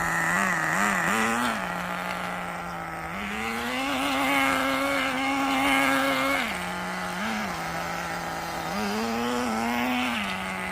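Nitro RC car's small glow-fuel engine idling, with a few quick throttle blips and two longer revs held for a few seconds: one starting about three seconds in, the other near the end.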